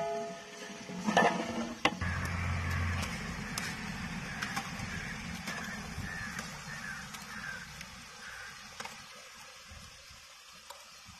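Sliced onions sizzling in hot oil in a large aluminium pot, a steady sizzle that slowly fades, with a couple of knocks of the iron ladle against the pot in the first two seconds.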